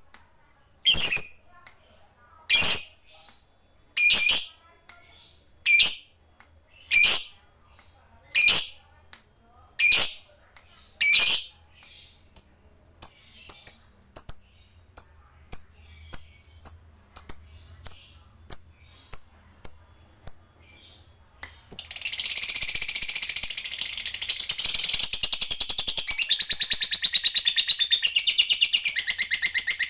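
Lovebird calling: sharp single shrill chirps about every second and a half, quickening to about two shorter chirps a second. About 22 s in, it breaks into a long continuous rapid rattling trill, the 'ngekek panjang' that keepers prize.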